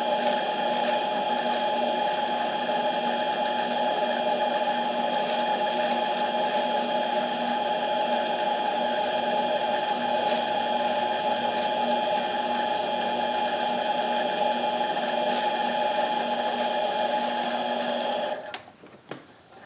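Harbor Freight mini lathe running steadily with a whine while it turns a camshaft. It shuts off a little after 18 seconds in, followed by a single click.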